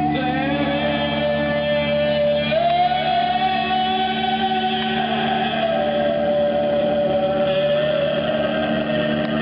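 Music: a long held melody line that slides slowly between notes over a steady low drone.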